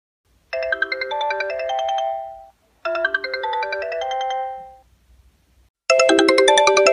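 Sony Ericsson mobile phone ringtone: a short chime-like polyphonic melody played twice with a brief pause between. About six seconds in, a different, louder and brighter ringtone begins.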